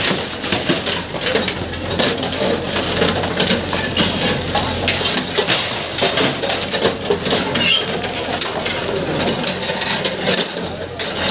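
Backhoe loader bucket breaking up a brick-and-concrete shop front, with bricks and rubble clattering and crashing down in a dense, continuous run of knocks. The machine's engine runs underneath as a steady low hum.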